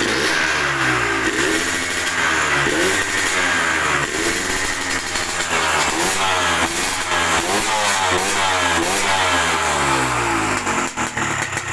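Yamaha VR150 two-stroke motorcycle with a TZ exhaust pipe, running and being revved over and over, its note rising and falling about once a second. The exhaust note is sharp and deep.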